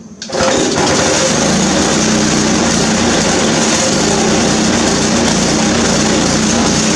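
Small gas engine of a Cub Cadet riding mower catching almost at once and then running steadily and loudly, out of gear in neutral.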